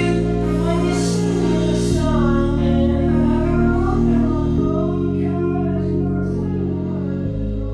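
Background music: a song with a singing voice over sustained chords that change every two to three seconds, fading out near the end.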